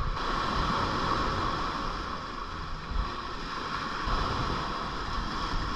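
Steady rush and lapping of water around a kayak, with wind rumbling on the microphone.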